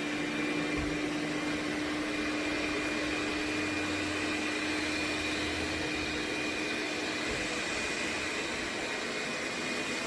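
MOVA S10 Plus robot vacuum running steadily on a rug, its suction turned up after detecting carpet: an even whir with a steady hum and a faint high whine.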